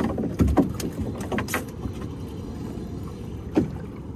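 Knocks and splashes on a small wooden fishing boat riding choppy water, over a steady low rumble. The knocks come in a quick run for the first second and a half, with one more about three and a half seconds in.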